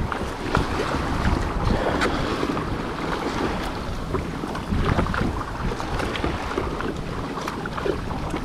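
Wind buffeting the microphone over water sloshing and splashing around an ocean kayak.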